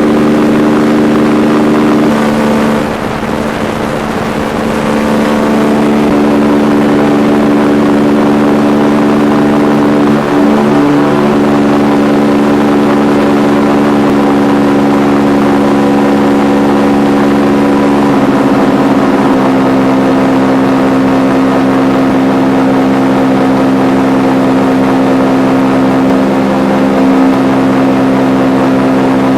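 Paramotor engine running in flight: a steady, loud drone whose pitch shifts a few times as the throttle setting changes.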